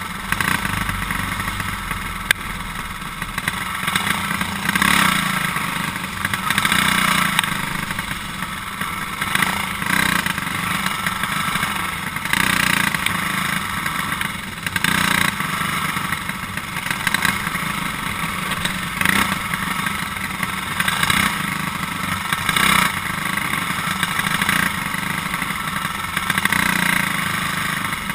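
Racing go-kart's small engine running hard at race pace, heard from on board the kart. The engine note swells and fades every couple of seconds as the kart works through the corners of the lap.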